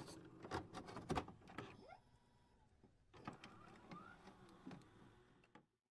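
Faint clicks and short rising whirs in two bursts, with a quiet gap about two seconds in.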